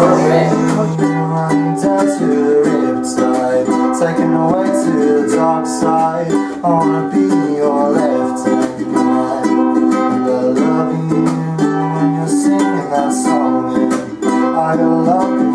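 Background music carried by a plucked-string accompaniment, playing steadily.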